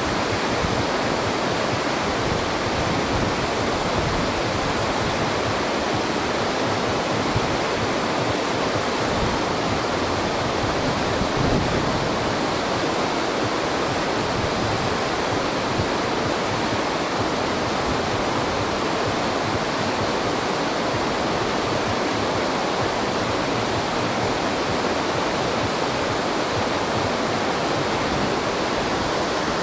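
Water rushing steadily over a dam, a loud, even roar of falling water with no breaks.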